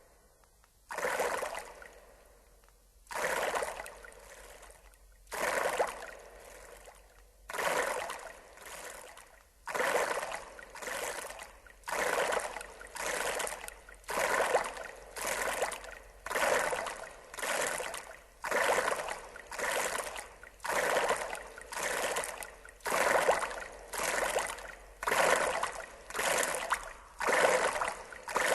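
Recorded water sounds: a repeating splashing surge, each one sharp at the start and fading within about a second, coming faster and faster from about one every two seconds to about one a second.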